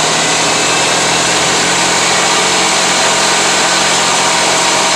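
Vehicle engine and drivetrain running steadily under throttle, with the humming and rattling of a bad driveshaft U-joint.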